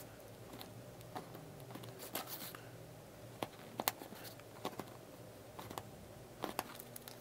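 Hobby knife tip pressing into a die-cut cardstock sheet and popping small pieces out: faint scattered clicks and short scratches at irregular moments.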